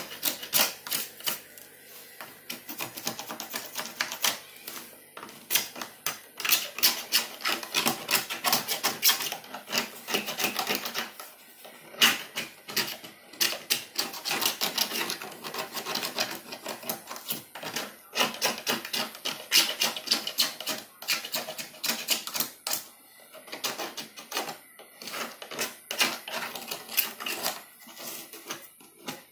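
Rapid, irregular scraping and clicking as a hand tool shaves burrs off the edges of hole-saw-cut holes in a plastic pipe, stroke after stroke with a few short pauses.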